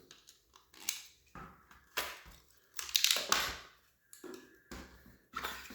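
Milsig T17 marker being taken apart by hand: its takedown pin is pushed out and the upper and lower receivers are worked apart. The sound is a series of separate clicks, knocks and short scrapes, about eight in a few seconds.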